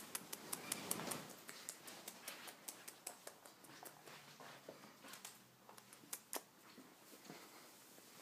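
Irregular run of light, sharp clicks and ticks, several a second, over a soft rustle near the start, thinning out in the second half.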